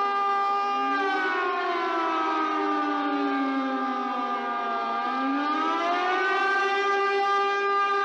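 Tsunami warning siren wailing: several steady tones sound together while another siren tone slides down over about four seconds and then rises back up, signalling a tsunami alert and the call to evacuate.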